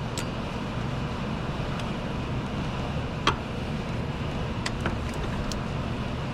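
A few light clicks and one sharper knock about three seconds in, over a steady low background rumble, as the serpentine drive belt is worked off the pulleys by hand with the tensioner released.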